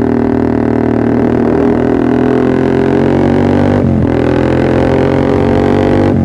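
Yamaha R15 V3's single-cylinder engine running through a Pro Liner TR1 aftermarket exhaust, holding a steady droning note that climbs slowly and dips briefly about four seconds in.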